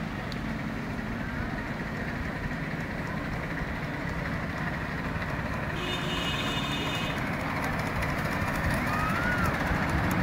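Miniature steam locomotive and its loaded riding cars running along the track, a steady rumble that grows louder as the train approaches. About six seconds in, a short whistle blast of several high pitches sounds for just over a second. Voices are faint near the end.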